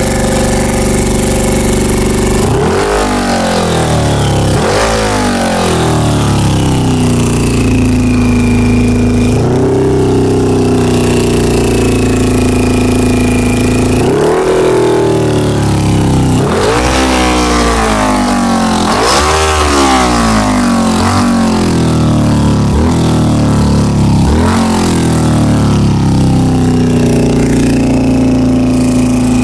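A 2000 Honda CBR600's inline-four engine idles, with its revs surging up and dropping back quickly about seven times, as carburetor cleaner is sprayed around the carburetor intake boots. A revving response to the spray is the sign of a vacuum leak at the boots.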